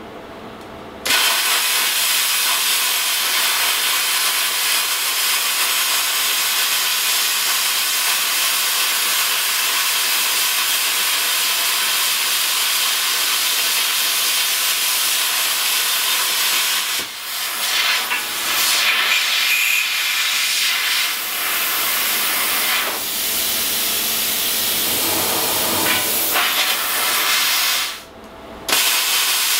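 Handheld plasma cutter cutting holes in a steel plate: a loud, steady hiss from the air-driven arc that starts about a second in, wavers a couple of times, and stops briefly near the end before starting again.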